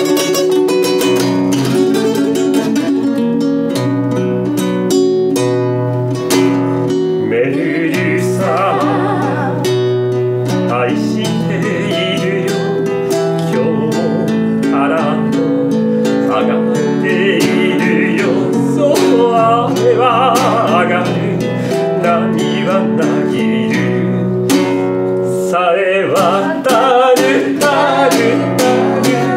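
Classical guitar playing a slow song. Voices sing along in phrases from about seven seconds in.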